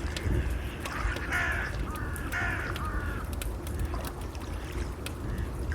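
A bird calls twice, about a second apart, over the steady crackle and pops of a wood fire and a low wash of water.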